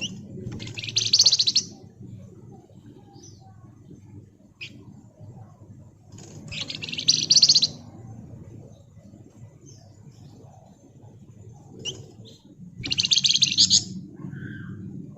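Javan fulvetta (wergan Jawa, sold as 'flamboyan') giving three rapid, buzzy, high-pitched trills, each about a second long and some six seconds apart, with a few faint short chirps between. A low steady hum runs underneath.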